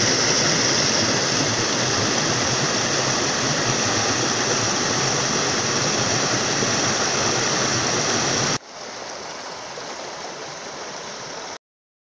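Rushing water of a rocky forest stream churning over stones, a steady loud rush. About eight and a half seconds in it drops suddenly to a softer rush, which cuts off shortly before the end.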